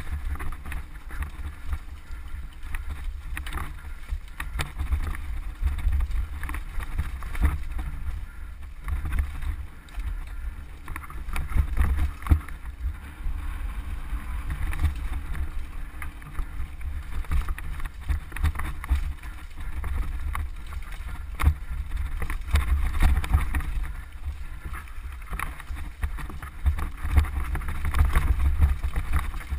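Wind buffeting the camera's microphone and the rattle of a mountain bike riding fast down a rocky trail: a steady low rumble broken by frequent sharp knocks and clatters as the bike hits rocks.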